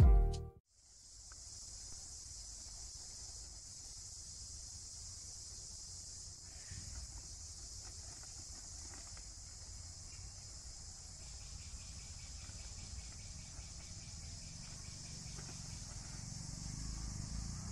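Steady high-pitched insect chorus buzzing without a break, over a faint low rumble.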